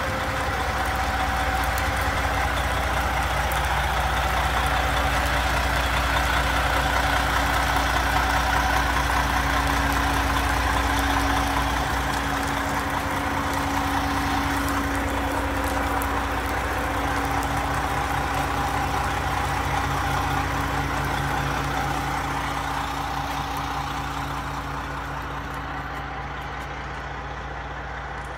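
Diesel engine of a drywall delivery boom truck running steadily while its crane lifts drywall, a continuous hum with a constant pitch. Over the last few seconds it grows quieter and duller as it is heard from inside the house.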